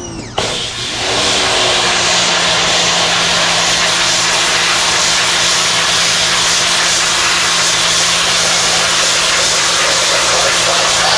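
Ryobi 2000 PSI corded electric pressure washer spraying a jet of water against the sheet-metal underside of a pickup bed: a steady hiss of spray with a low hum beneath. It builds up within the first second and then holds.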